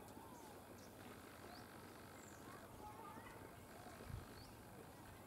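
Faint outdoor ambience: scattered short, faint bird chirps over a low hiss, with a brief low thump about four seconds in.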